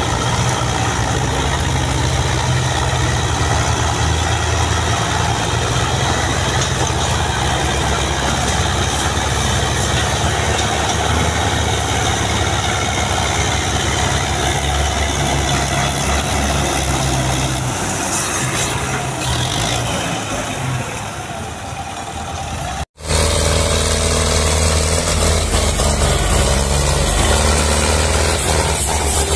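Belarus MTZ tractor's diesel engine running steadily under heavy load as it pulls a loaded sugarcane trailer, puffing black smoke. About 23 s in it cuts off abruptly and another heavy diesel engine runs on.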